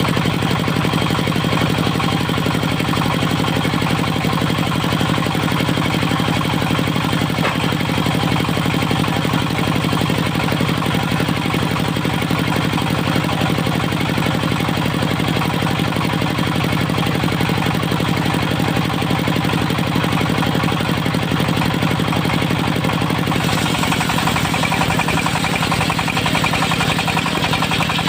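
Diesel engine driving a portable circular sawmill, running steadily; about 23 seconds in the sound changes, with added hiss higher up.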